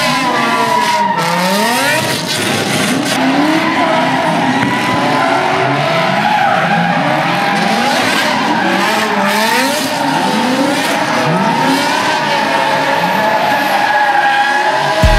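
Drift cars sliding with their tyres screeching in a steady high squeal, while the engines rev up and down over and over, about one throttle blip a second.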